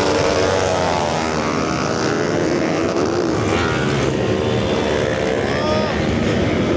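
Many small motorbike and scooter engines idling and revving together, several engine notes overlapping and rising and falling, loud and continuous.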